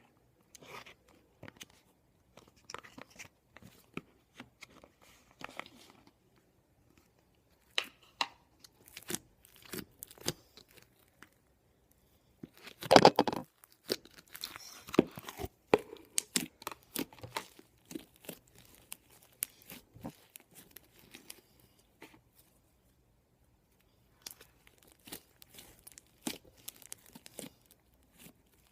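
Slime being squished, stretched and pressed by hand, making sticky clicks, pops and crackles in irregular bursts with short pauses; the loudest burst of crackling comes about halfway through.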